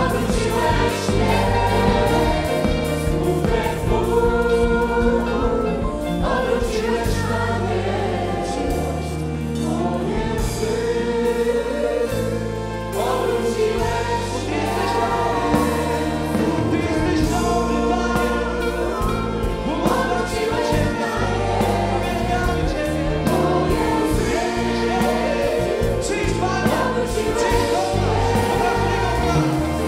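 Vocal group singing a Polish worship song in harmony, backed by a live band with a steady drum beat.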